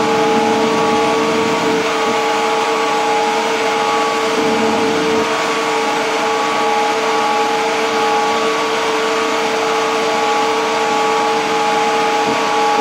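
Plant-room machinery, its pumps and motors running steadily: a loud, even drone with several constant humming tones.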